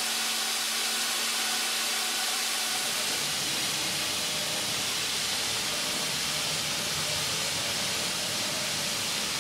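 Steady hiss of steam from a lavender distillery's still and boiler, even and unbroken throughout. A faint steady hum runs beneath it for the first three seconds.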